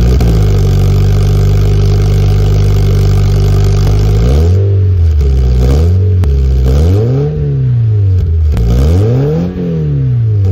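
Toyota 86 flat-four engine heard at the tailpipe through a Rosso Modello titanium aftermarket muffler: idling steadily, then from about four seconds in revved in several throttle blips, each rising and falling in pitch. Fairly loud for a road-legal muffler, with a tone close to a TRD muffler.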